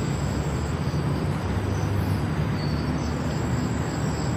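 Steady low rumble of outdoor background noise, with a faint, high, steady insect drone above it.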